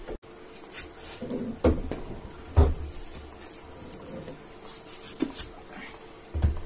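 Knocks and scraping of a heavy battery module being handled and slid into a metal battery-rack shelf, with the loudest knock about two and a half seconds in. A steady faint hum runs underneath.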